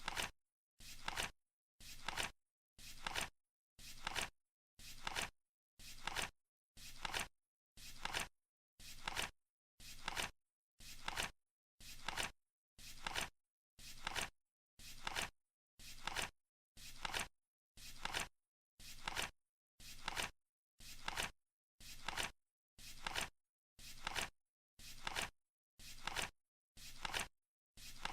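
Flip-clock countdown timer's flap sound, one short papery flip each second, evenly spaced with silence between.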